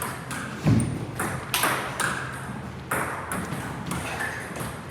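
Table tennis balls clicking off rackets and the table in an irregular string of sharp pings, with a heavier thud about two-thirds of a second in.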